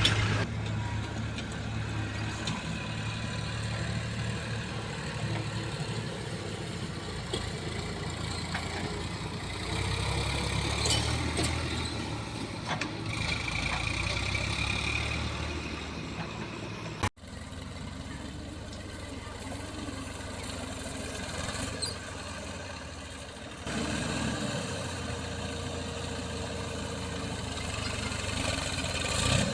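Diesel engine of a JCB 3DX backhoe loader running steadily while loading mud, with a brief sudden dropout a little past halfway.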